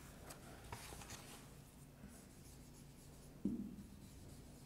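Faint scratching of a felt-tip marker writing on a whiteboard, with one short low sound about three and a half seconds in.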